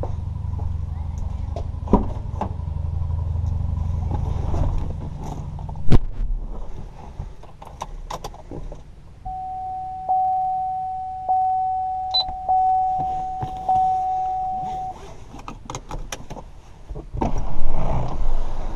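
A car door slams shut about six seconds in, then the Camaro ZL1's dashboard chime dings about once a second for several seconds. Near the end its supercharged LSA V8 cranks and starts with a loud burst, then settles into a running note.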